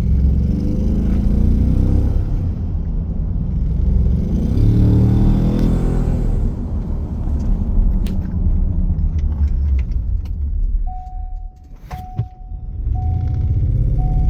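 Ford 3.5 EcoBoost twin-turbo V6 running with an exhaust leak, revved up and back down about four to six seconds in. Near the end the engine briefly drops away and comes back, while a chime beeps about once a second.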